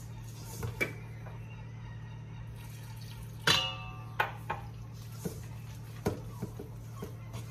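A whisk and spatula knocking and scraping against a stainless steel mixing bowl while flour is worked into wet dough ingredients, in scattered clinks. One sharp knock about three and a half seconds in sets the bowl ringing briefly.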